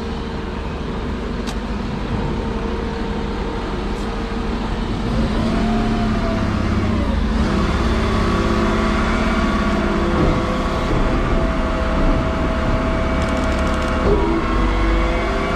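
Refuse collection lorry's diesel engine running, a low steady rumble that grows louder about five seconds in, with a brief rise and fall in pitch around the middle.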